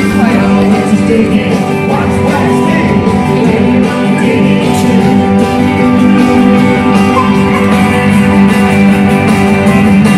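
Live band music led by guitars, played on stage in a large arena.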